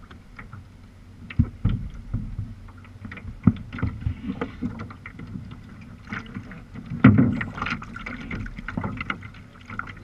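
Sea kayak being paddled: irregular splashes and knocks of the paddle strokes, the loudest about seven seconds in.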